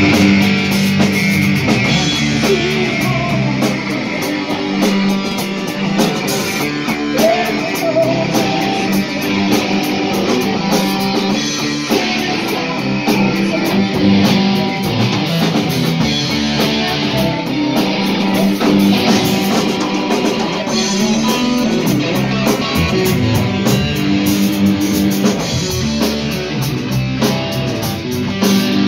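Live rock band playing loudly: electric guitar, bass guitar and drum kit together.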